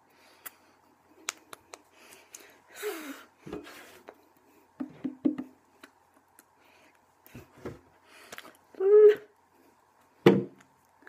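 A person signing in American Sign Language: scattered clicks and taps of the hands against each other and the body, a breathy exhale, and a few short wordless vocal sounds, the two loudest near the end.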